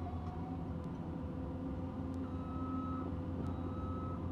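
Heavy construction machinery running with a steady low engine hum, and a back-up alarm beeping in long high tones from about halfway through.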